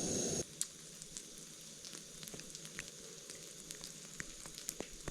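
Bread dough cooking over a camp stove, sizzling faintly with scattered small crackles and pops. A steady hiss cuts off about half a second in.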